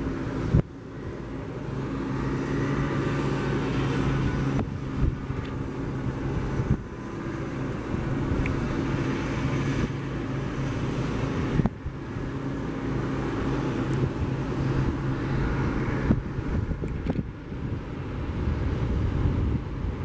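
An engine running steadily, with wind noise on the microphone; the sound drops out briefly a few times.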